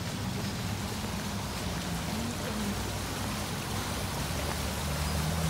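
Fountain water splashing into a stone pond basin: a steady rushing hiss.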